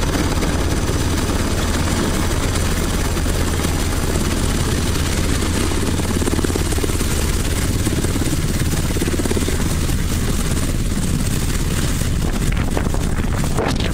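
Helicopter approaching, with steady rotor and engine noise. Gusts of wind hit the microphone near the end.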